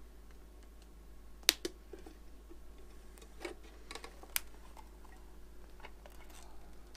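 Sharp plastic clicks and snaps from a Subaru Impreza headlight as its clear lens is pried off the housing, the oven-softened sealant giving way. A handful of clicks, the loudest about a second and a half in and again past four seconds.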